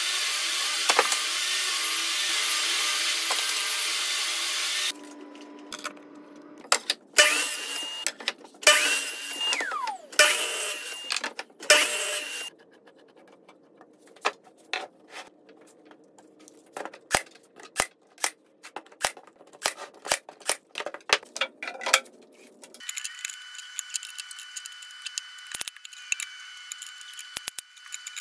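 A table saw runs, cutting plywood, as a steady loud noise that stops about five seconds in. Several short loud power-tool bursts follow, then a run of sharp single clicks, about two a second, from a cordless brad nailer, and near the end a steady high tone with clicks.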